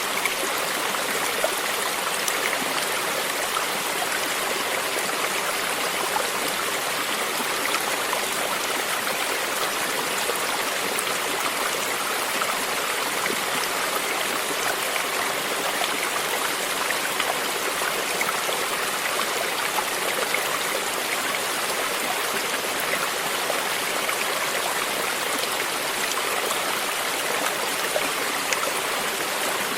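Stream water flowing steadily, with water lapping and trickling close by and the rush of a small waterfall behind it.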